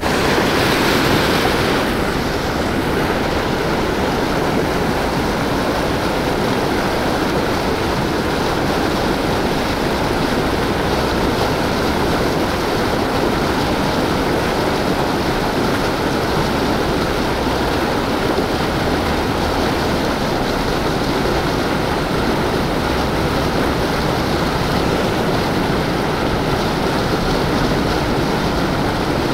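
Turbulent white water churning up from a river outflow, rushing steadily and loudly.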